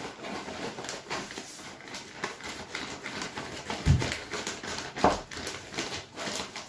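Wet particle carp bait being stirred with a spoon inside a plastic bag: steady crinkling of the bag and scraping of the seeds and pellets, with two heavier thumps about four and five seconds in.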